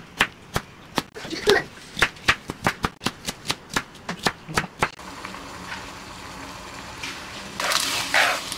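Kitchen knife chopping on a cutting board, about three quick strokes a second, stopping about five seconds in; then a low steady hum with bursts of hiss near the end.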